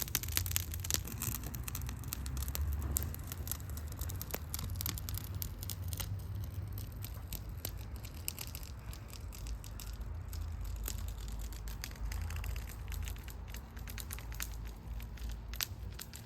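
Small wood fire of sticks crackling, with irregular pops and snaps that are thickest in the first half and thin out later, over a steady low rumble.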